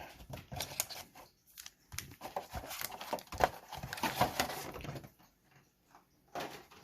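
Packaging being handled: booster packs and cardboard rustling and crinkling, with scattered taps and clicks, pausing briefly near the end.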